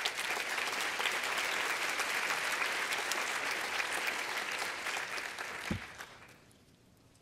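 Audience applauding in a large auditorium, a dense clapping that fades away about six seconds in. There is a dull low thump near the end.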